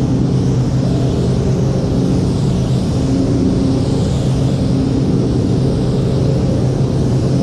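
Gravity-feed spray gun hissing steadily as it sprays red paint onto a car body panel, over a steady low mechanical hum.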